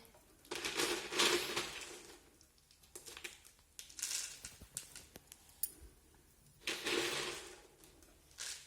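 Three short spells of pouring and rustling, about a second in, near the middle and near the end, as ingredients for Chocos are tipped into a bowl before mixing.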